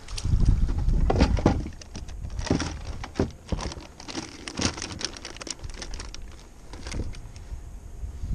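Wind buffeting the microphone, with a string of clicks, rattles and rustles from hands handling bait and tackle on a plastic kayak while a bait fish is taken out of a bucket and rigged.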